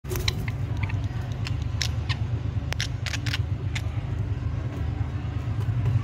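A steady low hum with scattered short, sharp high chirps and clicks over it.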